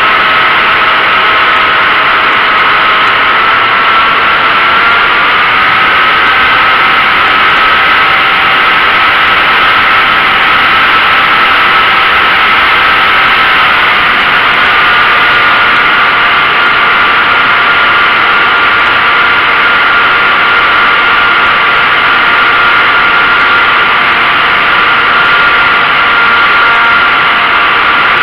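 RC model airplane's motor and propeller, heard up close from the onboard camera: a loud, steady whine over rushing air, its pitch shifting slightly about five seconds in and again at about fourteen seconds.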